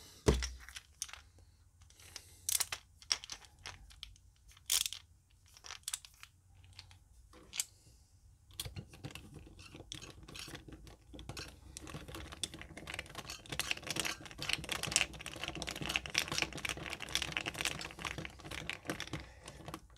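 Small plastic clicks and rattles from a Rubik's Cube being handled as its spring-loaded centre screw is fitted and tightened. Scattered single clicks at first, then from about eight seconds in a dense, continuous clicking that grows busier.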